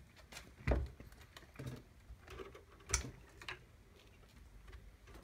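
Handling noises on a plastic chainsaw housing: a few short knocks and clicks with light rubbing in between, the loudest a little under a second in and about three seconds in.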